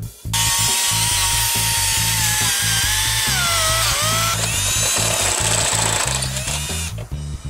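Milwaukee M18 cordless drill running hard. Its motor whine sinks in pitch about three to four seconds in as it loads up, and it stops about seven seconds in. Background music with a steady beat plays underneath.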